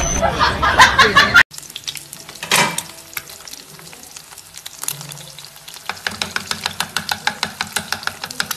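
Eggs and a sausage frying in oil in a pan, the fat crackling, turning to a quick run of sharp pops, several a second, in the last few seconds. Loud music cuts off sharply about a second and a half in, before the frying.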